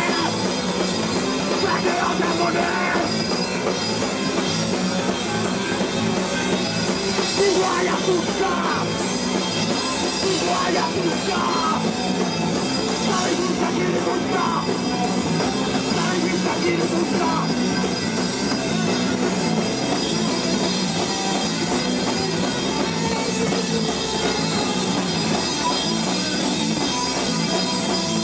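Hardcore punk band playing live, with a drum kit and electric guitar, loud and steady throughout.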